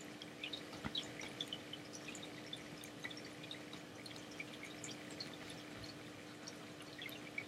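Faint room tone: a steady low hum with scattered faint, short, high-pitched ticks and plinks.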